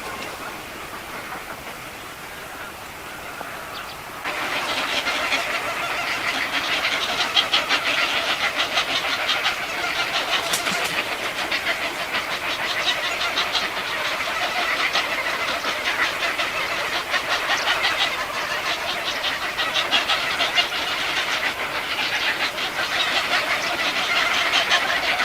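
Nestlings begging: a dense, rapid, high-pitched chirping chatter that starts abruptly about four seconds in and keeps on without a break.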